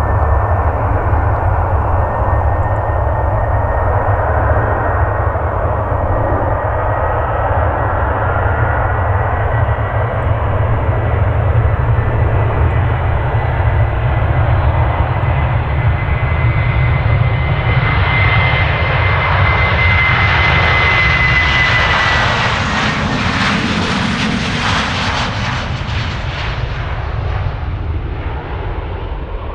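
Boeing 737-800's two CFM56-7B turbofan engines at takeoff thrust on the takeoff roll and lift-off: a steady jet noise with a high fan whine. The sound grows loudest as the jet passes, about two-thirds of the way through, then the whine drops in pitch and the noise fades as it climbs away.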